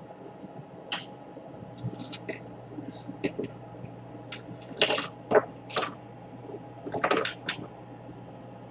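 Scattered light clicks and clinks of small hard objects being handled during laptop repair work, in small clusters, loudest about five and seven seconds in, over a faint steady hum.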